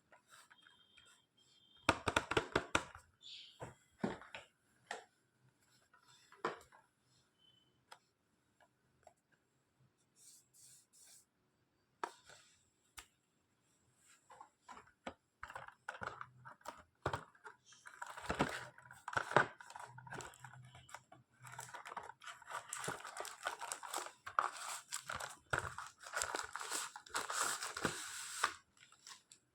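Packaging of a Bluetooth device being handled and opened: scattered taps and clicks, then from about halfway through a long run of rustling and tearing of wrapping.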